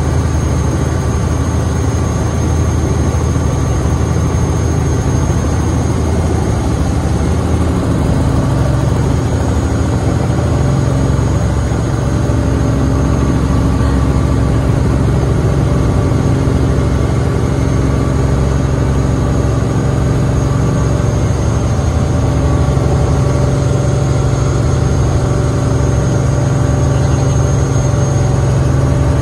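Robinson R44 helicopter heard from inside the cabin, its piston engine and main rotor running steadily during lift-off and climb-out, with a thin steady high whine above the low engine-and-rotor drone.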